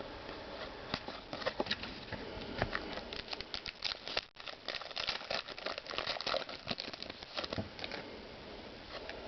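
Baseball trading cards being handled and flipped through by hand: many quick, light clicks and rustles of card stock, with some crinkling.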